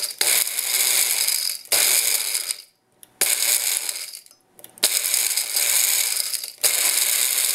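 Baby Bullet blender running in pulses as it grinds dehydrated carrot pieces into powder. The motor cuts out briefly about three seconds in and again about four and a half seconds in, then runs on.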